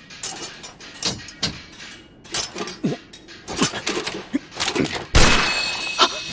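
Anime action sound effects: a run of sharp knocks and clanks, then a loud hit about five seconds in that trails off into a hiss.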